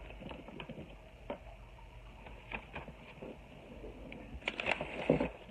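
Handling noise close to a phone's microphone: scattered light taps and clicks, with a denser cluster of clicks about four and a half seconds in.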